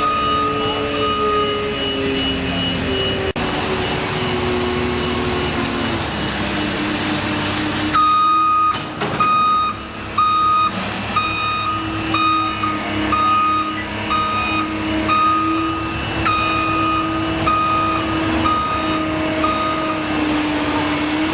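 A heavy vehicle's engine running, its pitch sagging over the first few seconds. About a third of the way in, its reversing alarm starts, beeping about once every three-quarters of a second.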